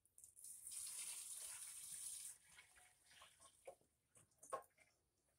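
Gasoline being poured from a can into a mini bike's small-engine fuel tank: a steady pouring rush for about two seconds, then a few trickles and light knocks as the pour stops.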